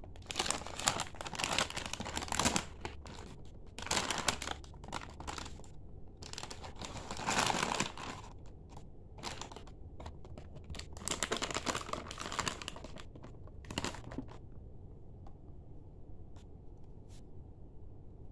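Plastic milk-powder packets crinkling in irregular bursts as they are handled and set down. The crinkling stops about fourteen seconds in, leaving only a few faint ticks.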